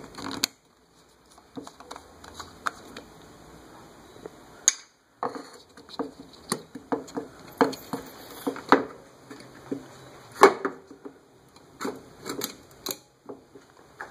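Irregular light clicks and knocks of hands handling a bottle and cap while motor treatment is poured into an engine. The engine is not running.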